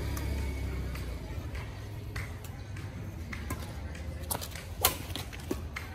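Badminton rackets striking a shuttlecock in a rally: a string of sharp hits, the loudest about five seconds in, over a low steady rumble.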